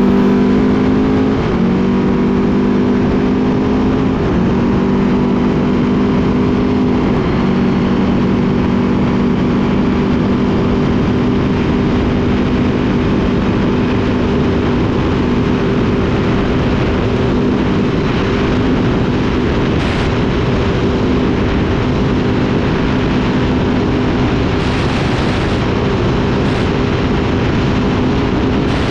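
Trophy truck engine running at high, nearly steady revs at speed on a dirt road, with a few small steps in pitch during the first several seconds, over constant wind and road noise.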